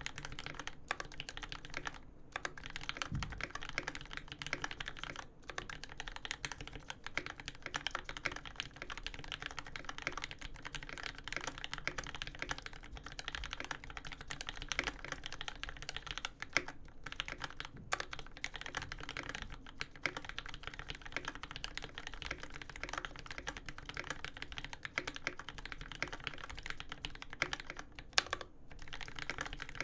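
Steady fast typing on a custom mechanical keyboard: a Dolphin v2 case with an aluminium plate, lubed Tealios v2 linear switches with Cherry switch tops, and GMK keycaps. Dense keystroke clacks with a few short breaks and one deeper thud about three seconds in.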